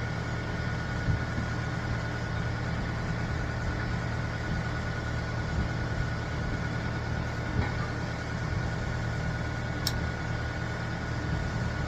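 New Holland C232 compact track loader's diesel engine idling steadily, with a constant low hum and a thin whine above it.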